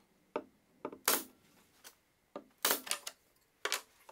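Irregular sharp wooden clicks and knocks, about seven, the loudest about a second in: small spacer blocks and strips of molding being set down, shifted and pulled out against a drawer front.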